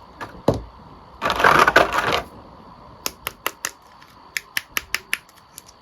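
Handling of plastic toys or packaging: two light clicks, a rustle lasting about a second, then a quick irregular run of sharp plastic clicks and taps.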